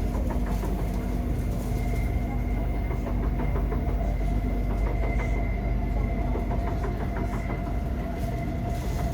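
Inside a Kawasaki–Nippon Sharyo C751B metro car running on the track: steady rumble with a thin high whine and repeated irregular knocking from the running gear, which the uploader is quite sure is not caused by flat wheels.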